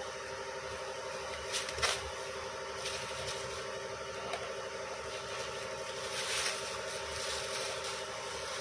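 A steady engine drone under a few brief rustles and tears of plastic wrapping as it is pulled off a package, loudest at about two seconds in and again at about six seconds in.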